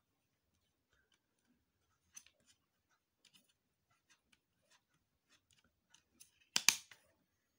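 Plastic CD jewel case being handled, with faint scattered ticks, then a sharp plastic click near the end as the disc is pressed off the case's centre hub.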